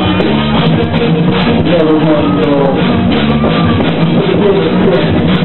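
Live rock band playing loudly: drum kit with cymbals under a guitar, a melodic line sliding up and down over a steady low end.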